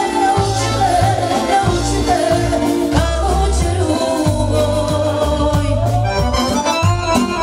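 Loud dance music led by accordion, with singing over a steady, pulsing bass beat.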